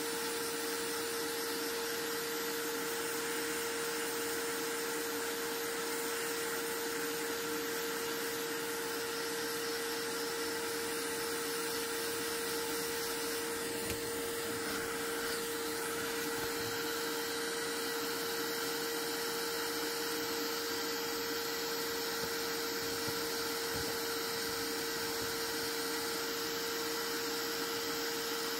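A small electric blower or fan motor running steadily, a constant whir with an even hum.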